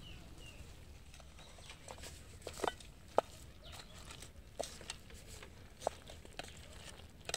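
Faint stirring of chicken and potato pieces in an aluminium pot with a green bamboo stick: a few short, separate knocks over a quiet outdoor background.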